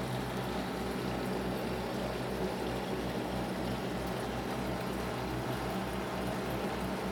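Aquarium pump or filter running with water flowing: a steady hum with a low throb pulsing about four times a second under an even wash of water noise.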